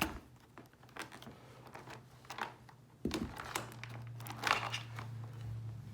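Plastic crinkling and clicking in short bursts, typical of the plastic dust canister of a Eureka bagless upright vacuum being handled. A faint steady low hum comes in about halfway through.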